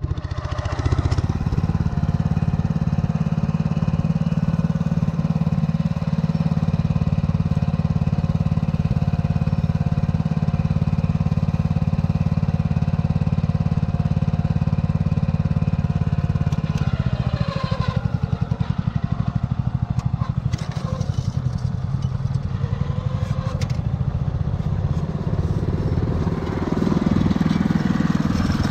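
Walk-behind cultivator engine running steadily under load while laying plastic mulch film over ridges. About two-thirds of the way through, the engine note drops, with a few clicks and clatter, then picks up again near the end.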